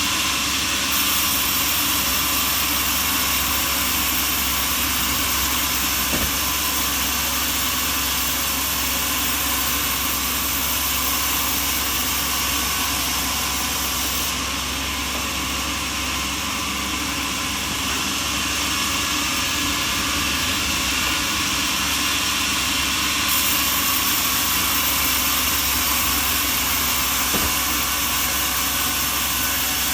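Sawmill machinery running steadily, a constant hiss-like mechanical noise.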